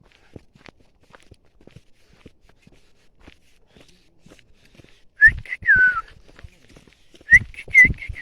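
Faint footsteps on a trail, then a person whistling short, clear notes that slide up and down, once about five seconds in and again near the end.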